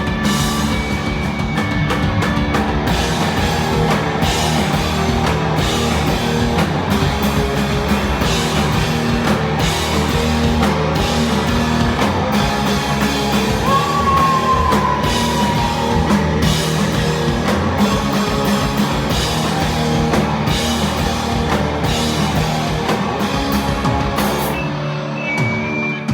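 Rock band playing live, with distorted electric guitar, bass and a drum kit with dense cymbal hits, and a voice now and then; the band stops right at the end.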